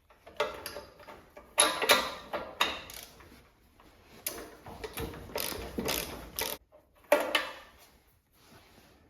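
Socket ratchet wrench with a 13/16 spark plug socket clicking in short runs with pauses, as a spark plug is unscrewed from the garden tractor's engine.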